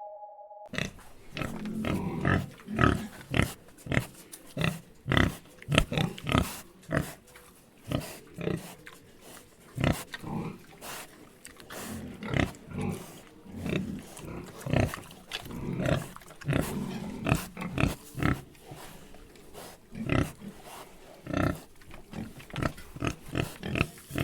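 Three pigs grunting, a dense, irregular run of short grunts that overlap one another.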